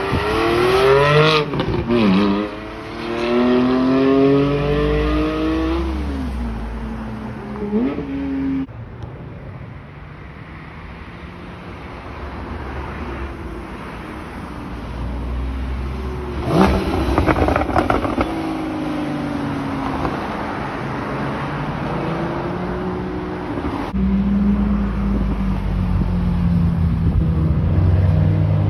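Sports car engines revving hard as the cars accelerate away, the pitch climbing and then falling back at each upshift, with several cars pulling off in turn. The first runs are Porsche Caymans; near the end a Lamborghini Huracán Performante's engine runs low and steady.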